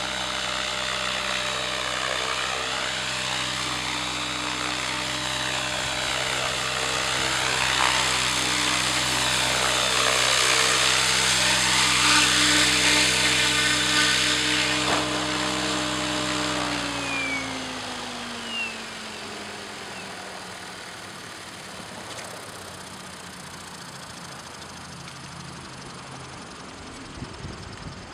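Radio-controlled model helicopter in flight, a steady motor and rotor whine that swells and dips as it moves about, loudest about halfway through. From about 17 seconds in the pitch falls steadily and the sound fades as the rotor spools down with the helicopter on the ground.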